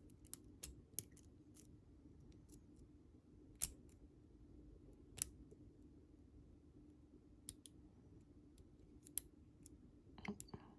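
Faint, irregular clicks of a lock pick and tension wrench working the pins of a Commando padlock, spaced a second or more apart, over a faint steady hum.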